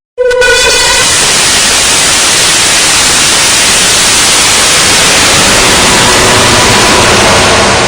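Very loud static hiss, like white noise, cutting in abruptly after a moment of silence and holding steady. A faint buzzing tone dies away within the first second.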